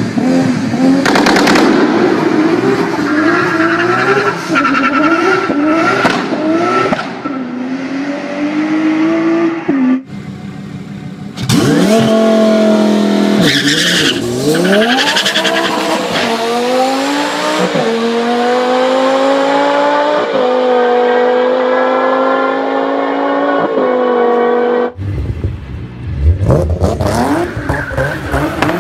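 Turbocharged car engines at full throttle. A car revs hard in repeated rising and falling bursts, then after a short gap a twin-turbo Lamborghini accelerates flat out down a drag strip, its pitch climbing and dropping at each of about five gear shifts. Near the end, tyres screech as a Nissan 370Z spins its wheels.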